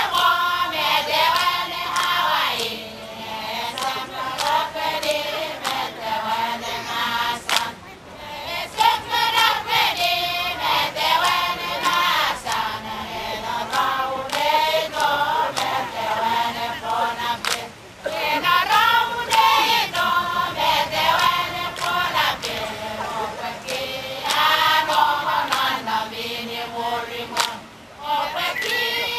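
A group of women singing a traditional Satawalese dance chant together, in phrases of a few seconds with short breaths between them, punctuated by sharp hand strikes.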